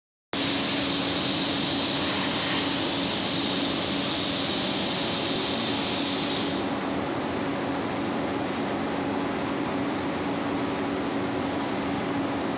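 Paint spray booth's extraction fan running with a steady hum, overlaid by the high hiss of a compressed-air spray gun that stops about halfway through.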